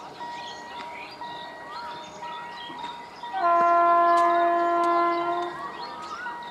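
WAP-5 electric locomotive's horn sounding one long blast of about two seconds, starting about halfway through. Before it, birds chirp over a faint steady high tone.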